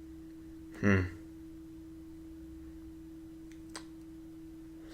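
A steady, unchanging hum-like tone. A short vocal sound comes about a second in, and a faint click near the end.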